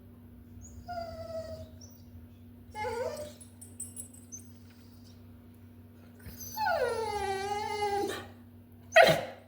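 A dog whining and whimpering in several pitched cries: short ones about a second and three seconds in, then a long whine that falls in pitch, and a brief one near the end. The whines are those of an unhappy dog.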